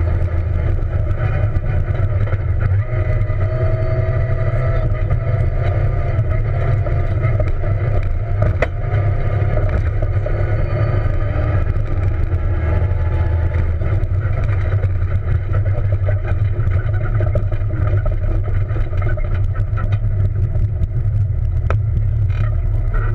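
Peugeot 207 rally car heard from inside the cabin at speed on a gravel road: steady engine and loud tyre and road rumble, with a few sharp knocks.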